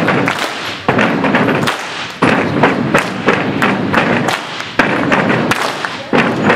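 Step team stepping in unison: a fast, uneven rhythm of stomps on the stage floor with hand claps and body slaps.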